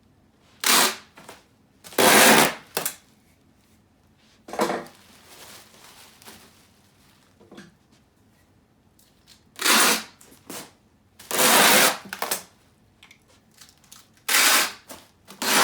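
Packing tape being pulled off the roll and pressed across bubble wrap: several harsh ripping pulls, the longest near the start and about two-thirds of the way in, with crinkling and handling between them.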